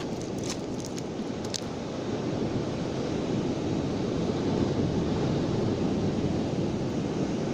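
Sea surf washing onto a beach, a steady rushing noise that swells a little a couple of seconds in, with some wind on the microphone. A few light clicks in the first second or so.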